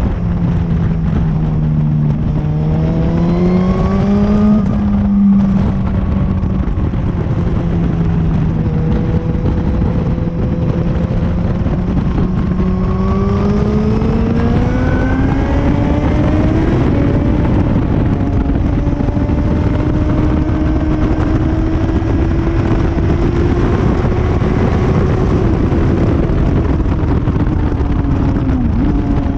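Motorcycle engine heard onboard at track speed, under heavy wind rush. Its note climbs twice as the bike accelerates, holding steady in between, then drops near the end.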